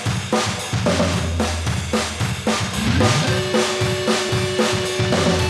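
Background music with a drum kit playing a steady beat over a bass line; held notes join about three seconds in.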